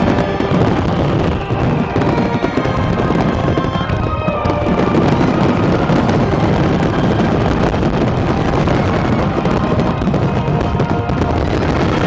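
A dense, continuous barrage of fireworks bursting and crackling, with music playing along.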